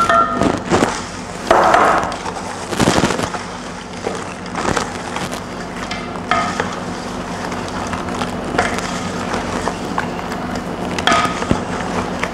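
Broken Marie biscuits tipped into a pot and stirred into thick melted chocolate with a wooden spoon: irregular scrapes and knocks of the spoon and biscuits against the pot.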